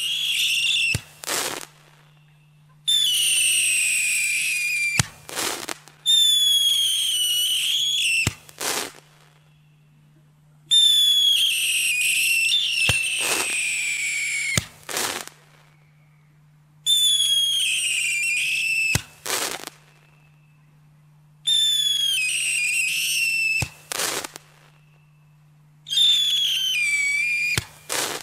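Lesli 'Vitali' fireworks battery, a 16-shot 30 mm cake, firing whistling shots: seven shrill whistles, each falling slightly in pitch over two to four seconds and ending in a sharp bang as it bursts, one about every four seconds. A steady low hum runs underneath.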